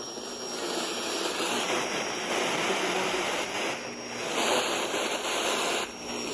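Radio receiver static: a steady hiss with a faint high whine, swelling slightly at times, with no transmission on the channel.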